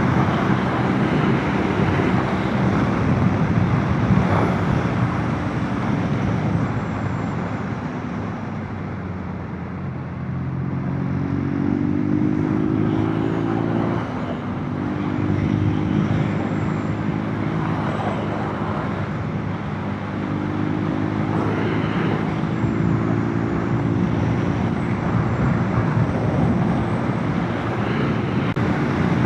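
Motorcycle engine running under way, with wind rushing over the microphone. The engine note climbs in pitch a few times, dropping back briefly between climbs.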